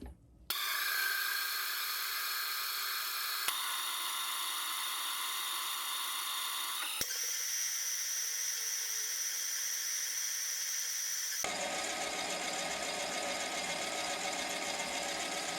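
Mini lathe running with a steady high-pitched whine while turning a metal part down to diameter. The sound changes abruptly three times, as in spliced-together clips.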